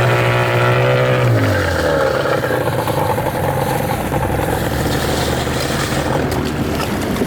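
Evinrude 50 outboard motor running under way; its pitch drops about a second and a half in, then it runs on steadily at the lower pitch.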